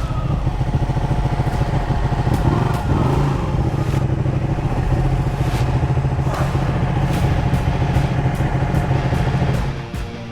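Ducati 1299 Panigale's L-twin engine running steadily at low revs, then stopping near the end.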